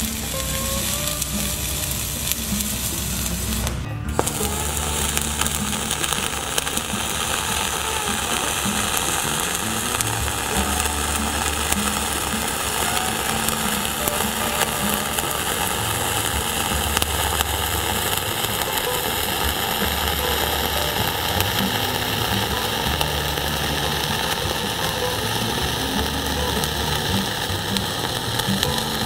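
Dual-shield flux-core welding arc (0.045 wire) crackling steadily while a fill bead is run on steel plate. The arc breaks for a moment about four seconds in, then strikes again. Background music with low bass notes plays underneath.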